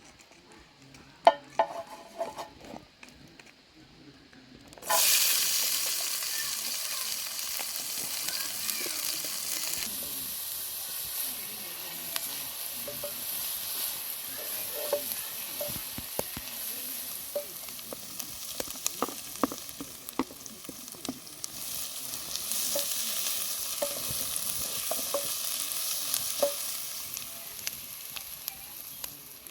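A few light knocks, then about five seconds in food hits hot oil in a frying pan and sizzles loudly. The sizzle goes on, broken by the clicks and scrapes of a utensil stirring the food.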